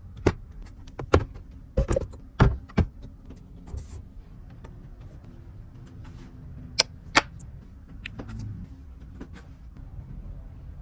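Irregular sharp knocks and clicks, a cluster in the first three seconds and two more close together about seven seconds in, over a low steady rumble.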